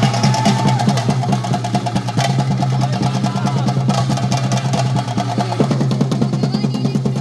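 Chenda drums of a temple melam ensemble played in fast, continuous rolls, with dense rapid strokes and a steady low drone underneath.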